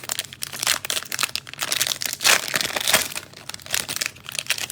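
Crinkling and tearing of a cellophane trading-card pack wrapper being opened, loudest about two to three seconds in.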